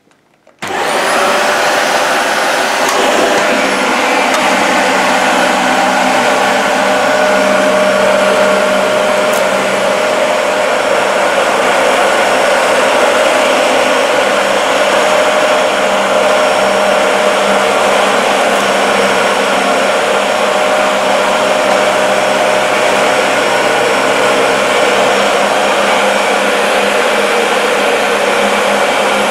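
Dyson DC40 MKII upright vacuum cleaner switched on about half a second in, its motor spinning up with a rising whine, then running steadily while vacuuming a rug.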